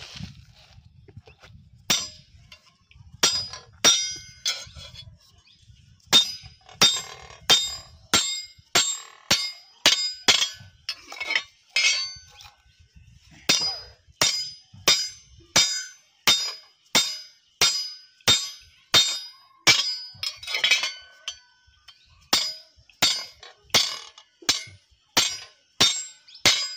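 Hand hammer striking a steel pin held on a billhook's iron handle against an anvil, fastening the handle to the blade: a long run of sharp metallic clinks with a ringing tone, up to about two a second, with a few short pauses.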